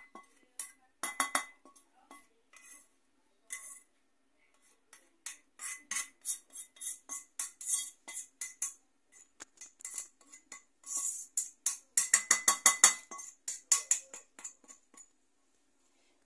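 Spatula scraping and knocking fried rice out of a wok into a glass dish: rapid runs of clinks and scrapes with a ringing metallic note, coming in several bursts and stopping about a second before the end.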